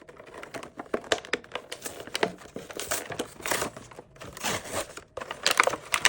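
Close rustling and crinkling with irregular scattered clicks, louder in clusters about a second in, around the middle, and near the end.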